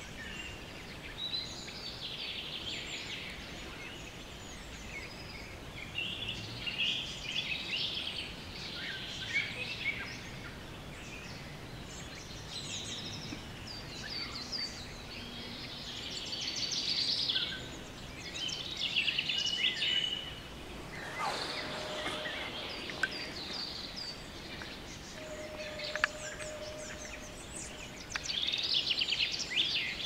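Several songbirds singing in a forest, overlapping chirping and twittering phrases coming one after another, over a faint steady background hiss.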